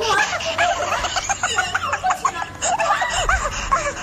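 People laughing and giggling in quick, choppy bursts that overlap throughout.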